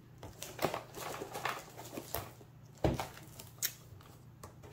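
Hands handling a cardboard box and its packaging on a tabletop: scattered light rustles and clicks, with a heavier thump just under three seconds in and a sharp knock shortly after.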